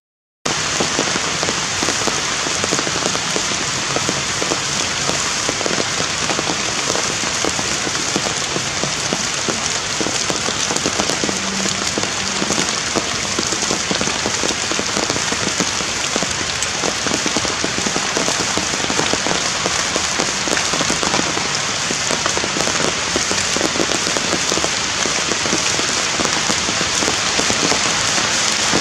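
Heavy, steady rain pouring down. It cuts out for a split second just after the start, then runs on evenly.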